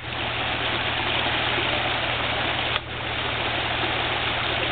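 Off-road vehicle's engine idling steadily under a steady hiss, with a brief drop in level a little under three seconds in.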